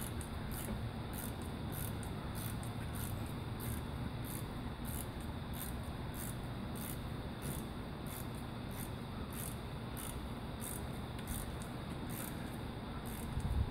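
Insect chirping: a steady run of short high-pitched chirps, two or three a second, over a low steady hum.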